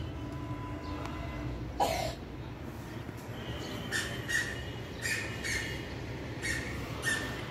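A bird chirping outside: short repeated high chirps, about two a second, starting about three and a half seconds in, over a steady low rumble. A single short noisy burst about two seconds in.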